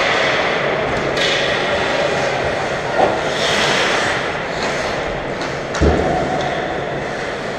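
Ice hockey play in an echoing rink: skates and sticks scraping on the ice under a steady arena din, with two sharp knocks, about three seconds in and just before six seconds.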